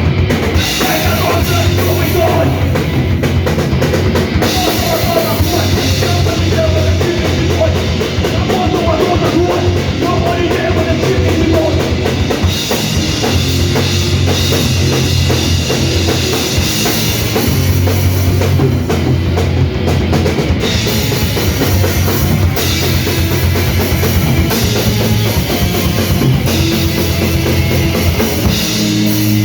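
Live crust punk band playing loud distorted guitars, bass and pounding drums.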